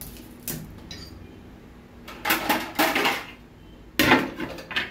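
Kitchenware clattering on a counter: a few knocks and scrapes near the middle, then the loudest, sharpest clatter about four seconds in as a plastic plate and a knife are brought down onto the counter.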